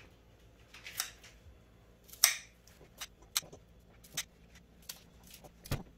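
Kitchen scissors snipping a green onion into pieces over a frying pan: a series of short, sharp snips at uneven intervals, the loudest a little over two seconds in.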